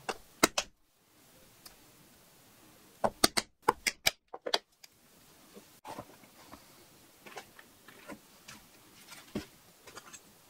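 Sharp knocks from a metal hole punch being struck through small leather discs on a cutting board: a few in the first second, then a quick run of five or six a few seconds in. After that come softer taps and rustles as the leather bag is handled on a cutting mat.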